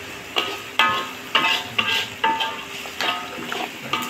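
A utensil stirring a pot of thick curry, knocking against the pot with short ringing clinks about twice a second.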